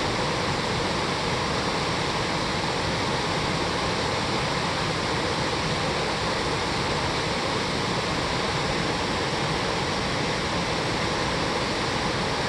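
Mountain stream and waterfall running full after rain: a steady, even rush of falling and tumbling water with no breaks.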